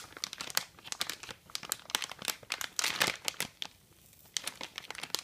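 Metallised anti-static bag crinkling as hands unfold it from around a graphics card: a run of sharp crackles, with a brief lull a little under four seconds in before the crinkling resumes.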